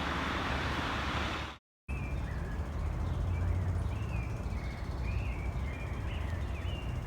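Steady low outdoor rumble with small birds chirping, short high gliding notes repeated every second or so, broken by a brief cut in the sound about one and a half seconds in.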